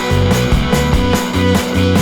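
Background music: an upbeat rock track with a driving beat and a stepping bass line.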